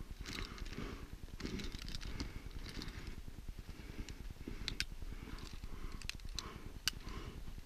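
Climbing gear being handled by hand: rustling of clothing and equipment, with several sharp metallic clicks of carabiners and hardware in the second half.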